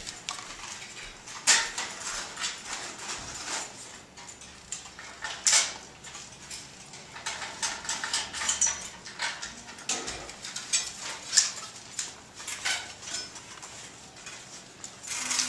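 Irregular clicks, knocks and metallic clinks of camera and film-lighting gear being handled during setup, with a few sharper knocks standing out.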